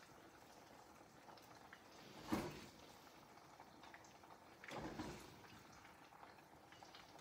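Slotted spatula lifting fried chicken pieces out of a wok onto a ceramic plate: a sharp knock about two seconds in and a longer scrape just before five seconds, over a faint steady hiss.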